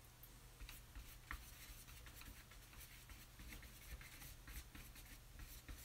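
Paintbrush strokes on a canvas: faint, irregular scratchy brushing, over a steady low hum.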